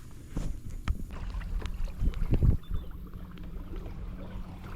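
Water splashing and knocking around a fishing kayak: a few sharp knocks in the first couple of seconds and a louder splash about two seconds in, then a steady low rumble of water and wind.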